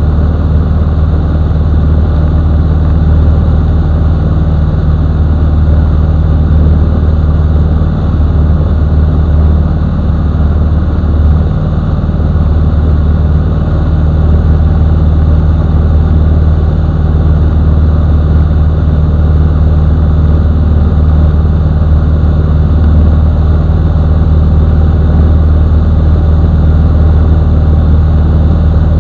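Mustang II light aircraft's piston engine and propeller in steady cruise, a loud, even drone heard from inside the cockpit.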